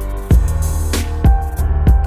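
Hip-hop backing music with a steady beat of heavy kick drum and sharp snare hits.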